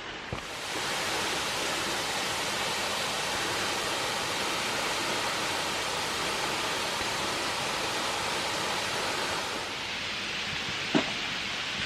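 Marymere Falls, a steady rush of falling water, with one brief click near the end.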